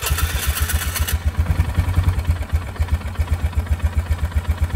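Polaris Sportsman 500 HO's single-cylinder four-stroke engine catching on the starter and settling into a steady, evenly pulsing idle, with a bright rush of noise in the first second. It is being run with the reservoir oil line clamped off to prime the oil pump after an oil change.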